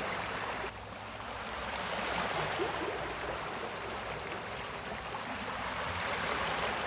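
Recorded sea waves washing in: a steady rushing of surf that swells and eases slowly, with a small drop about a second in.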